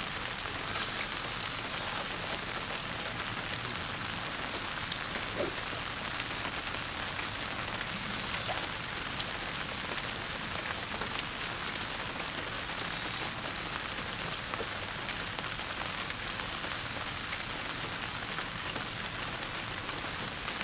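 Steady rain falling, an even hiss with a few faint scattered ticks.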